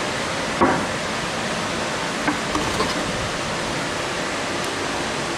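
Steady hiss of shop background noise, with one short knock about half a second in and a few light clicks a couple of seconds later as engine parts are handled.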